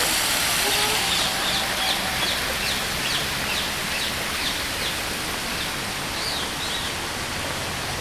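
Steady rush of water falling over a rock cascade, easing a little after a few seconds. From about two seconds in, a bird calls a quick series of short, high chirps.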